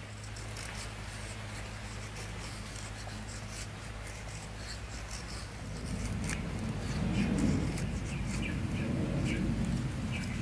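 Fixed-blade knife shaving thin curls off a stick of dry split wood to make a feather stick: repeated scraping strokes with small clicks, louder from about halfway through. A steady low hum runs underneath.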